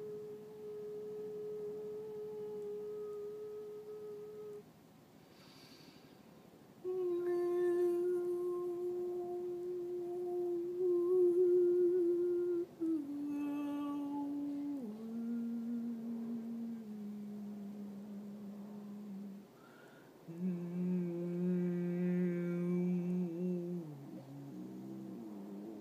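A woman humming long held notes as vocal toning. The pitch steps down over several notes, with two short pauses about 5 and 20 seconds in and a brief glide near the end.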